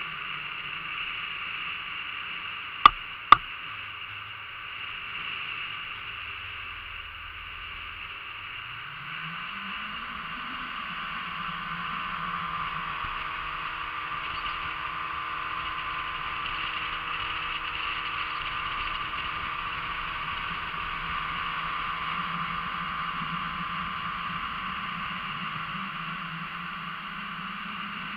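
Outboard motor driving a small motorboat, steady at first and then climbing in pitch about eight seconds in as the boat speeds up, over a constant rush of water and wind. Two sharp knocks about three seconds in.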